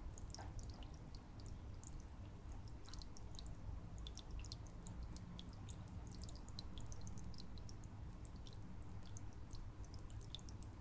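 Faint aquarium water sounds: light dripping and trickling with many small, high ticks, over a low steady hum.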